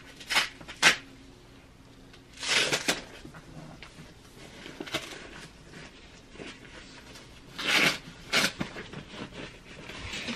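Protective packaging wrap on a new iMac rustling and crinkling as it is handled and pulled off the screen, in several short bursts.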